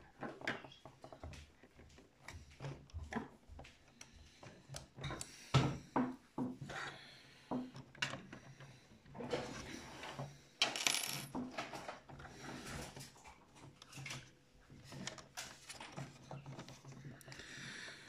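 Hands handling the parts inside the opened plastic hull of an RC Leopard 2 tank: irregular small clicks, taps and scrapes of plastic and small metal pieces, with a couple of louder knocks about six and eleven seconds in.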